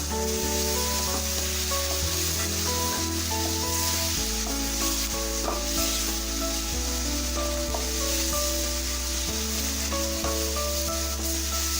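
Chicken pieces sizzling in sauce in a hot frying pan while being stirred and mixed, under background music of held notes over a steady bass.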